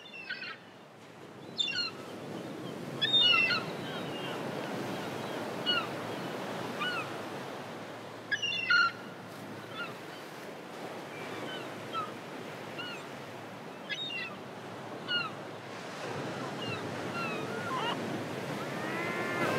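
Surf washing steadily on a shore, with birds giving short chirping calls every second or two over it.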